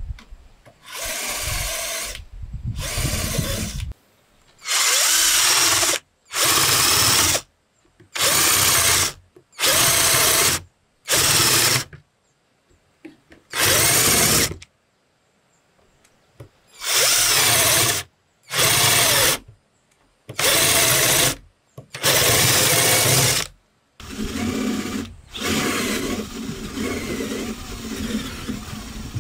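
Power drill boring into a wooden plank in about a dozen short runs of roughly a second each, with brief pauses between them. For the last few seconds a steadier, rougher noise follows.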